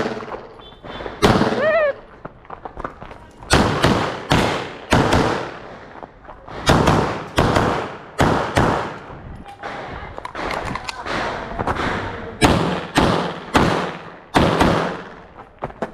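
A string of pistol shots fired in quick pairs and short bursts, about twenty in all, each crack echoing under the range roof. This is a competitor shooting a practical-shooting stage, engaging targets with a pair of shots each.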